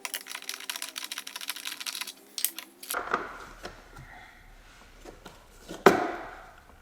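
Rapid clicking of a ratchet wrench turning a socket on a long extension, over background music. About three seconds in the music stops, and metal tool clanks follow, with one loud, ringing metallic clank near the end.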